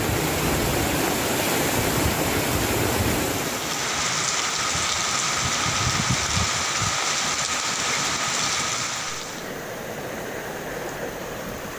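Heavy rain pouring down, a steady hiss of rain and running water. The sound changes abruptly about four seconds in, and again about nine seconds in, where it gets a little quieter.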